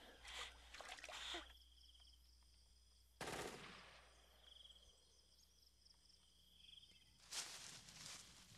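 Faint gunfire in a night forest: one sudden shot about three seconds in that dies away over most of a second, then a quick burst of several cracks near the end. Faint pulsing insect chirring runs underneath.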